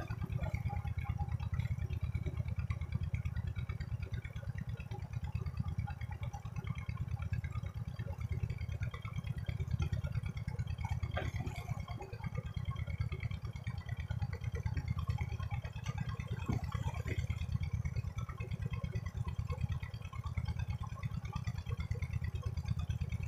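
Steady low rumble of wind buffeting the phone's microphone, with faint scattered water sounds from a man diving in a muddy pond.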